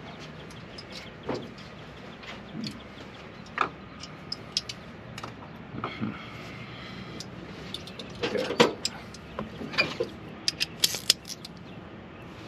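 Scattered metal clinks and knocks of hand tools being handled, a socket and extension being fitted to a ratchet, with a louder cluster of clanks past the middle and a quick run of clicks near the end.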